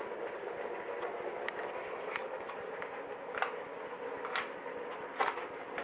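Steady background noise with about six short, sharp clicks scattered through it.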